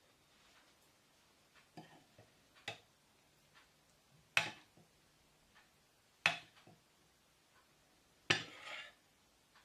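Metal spoon clinking against a ceramic bowl while scooping thick lentil soup: a few faint taps, then three sharper clinks about two seconds apart, the last drawn out into a short scrape.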